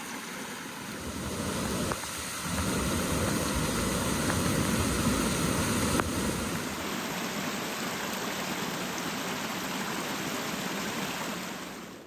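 Rain-swollen creek in flood rushing steadily, with a broad roar of fast water that grows louder a couple of seconds in.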